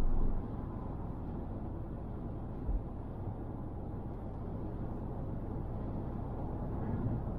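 Steady road and tyre noise of a car cruising at motorway speed, heard from inside the cabin. It drops in level just after the start, with a brief low thump about two and a half seconds in.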